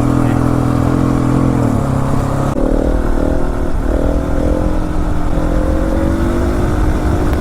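Husqvarna 701 Supermoto's single-cylinder engine running at a steady note, dipping about two seconds in, then pulling away with its pitch rising slowly and wind buffeting the microphone.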